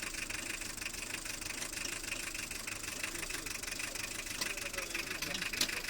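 Toyota 3C-TE 2.2-litre turbo-diesel four-cylinder idling roughly and unevenly, a lumpy idle that the owner puts down to low compression in cylinder number 4. A single sharp click sounds near the end.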